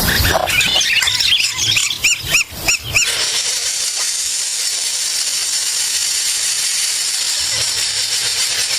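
Small birds chirping in a quick series of short, high, arched calls, about three a second, then after an abrupt change about three seconds in, a steady high hiss.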